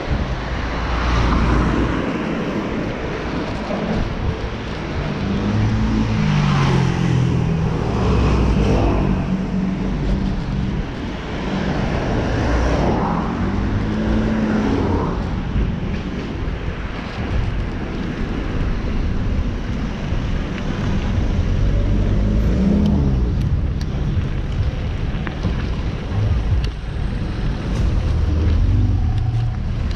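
Road traffic heard from a moving rider: a steady wind rumble on the microphone, with car engines rising and falling in pitch a few times as nearby vehicles move.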